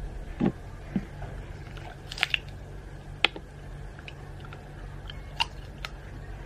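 A handful of light, sharp clicks and taps at irregular intervals: small plastic items, an eyewash bottle and its eyecup, being handled. A low steady hum runs underneath.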